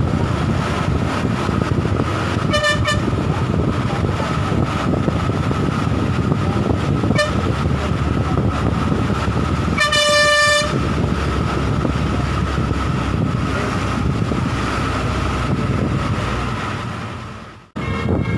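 Steady engine and road rumble heard from inside a moving bus, with a short horn toot about two and a half seconds in and a longer horn blast around ten seconds in. The sound fades out and cuts off near the end.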